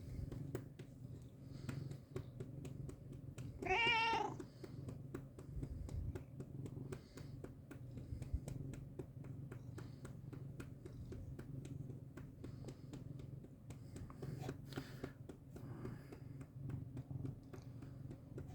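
A domestic cat purring steadily, with one short, wavering meow about four seconds in.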